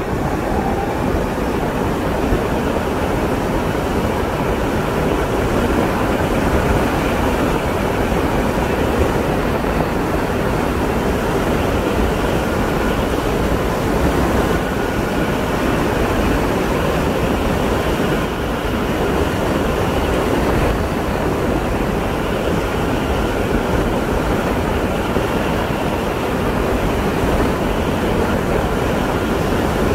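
Steady wind noise on the microphone mixed with tyre and road noise from a vehicle driving along an asphalt road.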